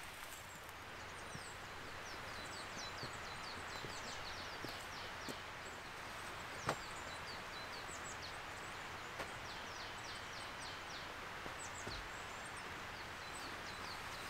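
Small birds chirping in quick runs of short high notes that sweep down in pitch, over a steady outdoor hiss. A few sharp taps stand out, the loudest about halfway through.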